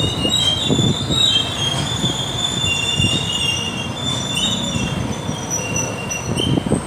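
Motorcycle riding slowly through street traffic, heard from on the bike: a low engine and road rumble under a high-pitched squeal that wavers between several pitches.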